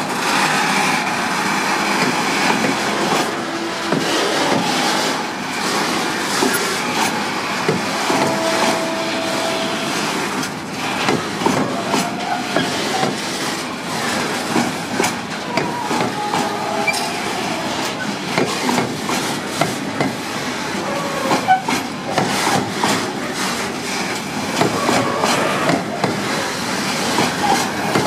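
Container freight wagons rolling past, their wheels clattering steadily over the rails with many short clicks and a few brief thin squeals of wheels against rail.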